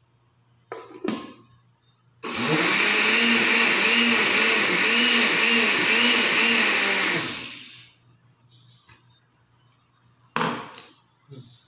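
Synco countertop blender running for about five seconds while it blends aloe vera gel into juice; its motor pitch swells and dips about twice a second as the load churns, then it winds down. A couple of short knocks come before and after.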